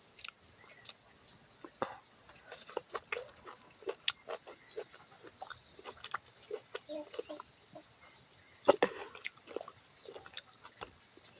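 Close-miked eating: wet chewing and lip-smacking in irregular short clicks, with a louder smack about nine seconds in.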